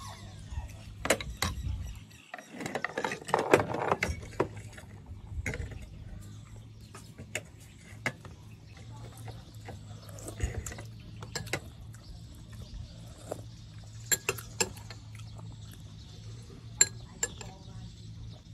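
Metal spoon and ladle clinking and scraping against a ceramic bowl and plates while eating, many short sharp clinks spread through, with a denser run of scraping and mouth noise about three seconds in, over a low steady hum.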